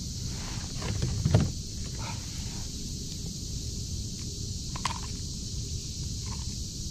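Wind rumbling on the microphone, with one dull thump about a second in and a few light clicks from handling.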